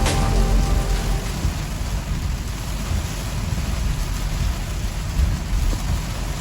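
Rain falling steadily, an even hiss with a low rumble underneath. Background music fades out just at the start.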